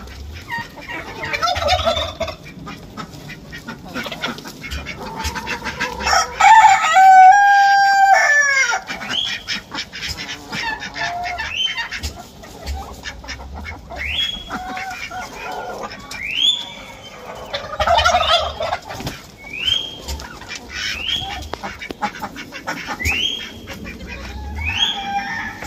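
Flock of chickens calling and clucking, with one long, loud crow about six seconds in, then short sharp calls repeating about every second and a half.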